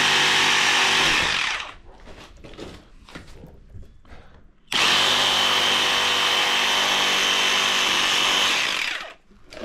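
A power tool cutting through a plastic milk crate's lip, run in two spells: a short one of under two seconds at the start, then a longer one of about four seconds. Faint knocks of handling come between them.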